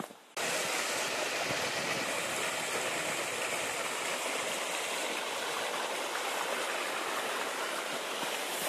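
Mountain stream rushing over rocks, a steady, even noise that starts abruptly less than half a second in.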